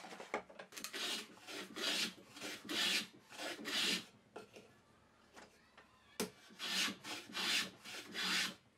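Hand plane shaving the edge of a walnut board held in a vise, a run of quick rasping strokes with a pause of about two seconds midway. It is trimming the lid down to its final width.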